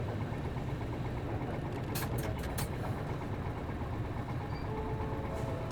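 Bus's MD92TJ diesel engine running steadily with a low hum, heard from inside the bus, with a few sharp clicks or rattles about two seconds in.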